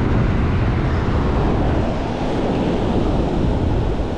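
Wind buffeting the microphone over the steady rush of ocean surf breaking on the beach.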